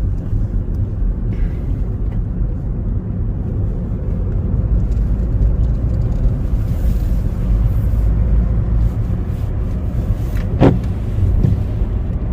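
Steady low road and engine rumble of a moving car, heard from inside the cabin, with one short knock about ten and a half seconds in.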